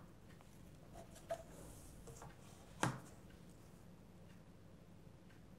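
A sheet of paper and a wooden ruler being handled on a table: two light knocks, the louder about three seconds in, with a soft paper slide between them and a few faint ticks.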